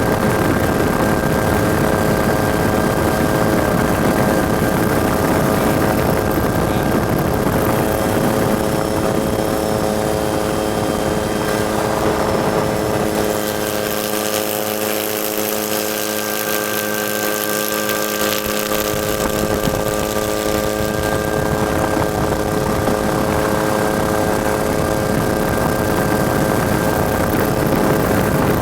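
Helicopter running steadily, heard from on board: a constant drone with a stack of unchanging tones over a noisy rush. The low end thins out briefly about halfway through.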